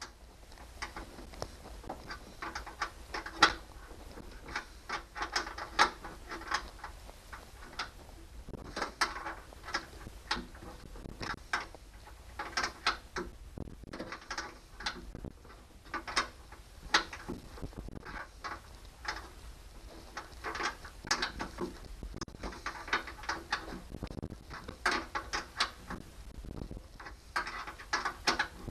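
Hand ratchet clicking in repeated bursts of quick strokes as fasteners are tightened down.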